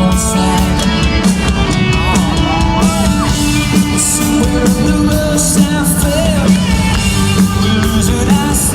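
Live country-rock band playing at full volume with a male lead voice singing over steady drums and sustained instruments.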